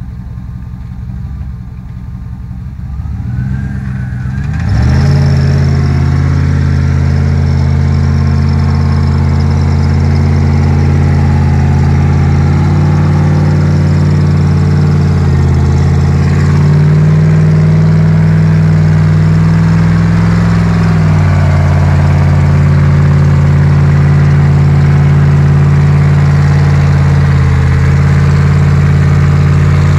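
Off-road competition vehicle's engine close by, its revs climbing about four seconds in and then held loud and steady under load, pitch lifting a little in the middle before easing back.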